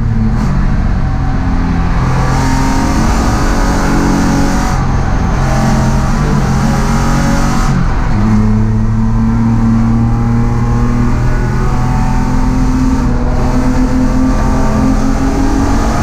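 A race car's engine heard from inside the cockpit, running hard under load. The pitch steps several times, at the gear changes, with the engine note loudest over road and wind noise.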